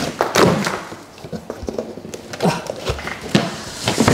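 Cardboard shipping box flaps being pulled open and handled: cardboard scraping and rustling, with several dull thumps and knocks.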